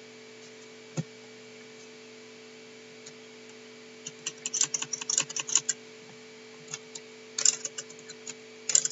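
Computer keyboard typing: a single keystroke about a second in, then two quick runs of keystrokes in the second half, over a faint steady electrical hum.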